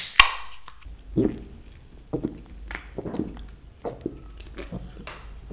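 Aluminium can of cola cracked open with a sharp pop and a short fizzing hiss, then a run of gulping swallows as the cola is drunk straight from the can.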